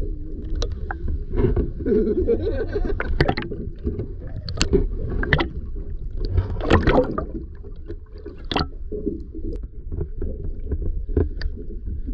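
Sound picked up by a camera held underwater: a steady muffled low rumble of moving water, with gurgling and scattered sharp clicks and splashes.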